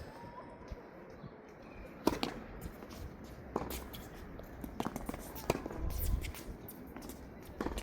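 Tennis ball struck by rackets and bouncing on the court during a rally: a string of sharp pops about a second apart. Wind rumbles on the microphone briefly past the middle.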